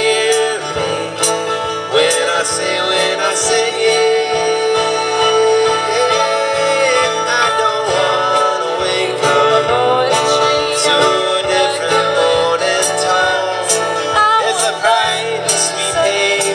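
Live acoustic music: guitar playing with a melodic voice line over it, continuing after the chorus.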